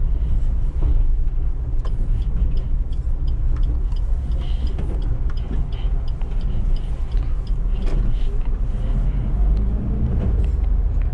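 Suzuki Eeco with its 1.2-litre engine driving along: a steady low rumble of engine and road noise, with many faint, irregular ticks scattered through it.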